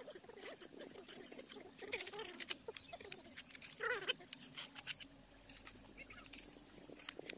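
A mason's trowel scraping and tapping on wet cement as the petals of a cement temple kalash are shaped, in a run of quick light scrapes and clicks.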